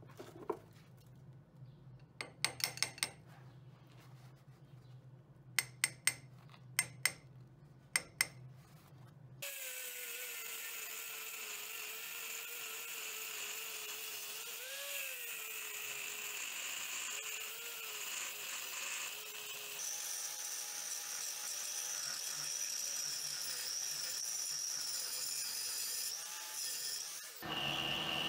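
Sharp metal taps in short clusters over a low steady hum for the first third. Then an angle grinder with a thin cut-off disc cuts into a steel block: a steady grinding noise with a motor whine whose pitch wavers under load, which stops suddenly near the end.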